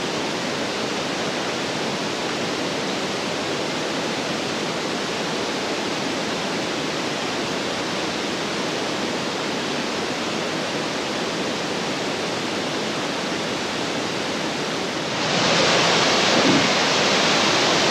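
Steady rushing of a river pouring over a low waterfall and rocky shoals. It grows louder and brighter about fifteen seconds in.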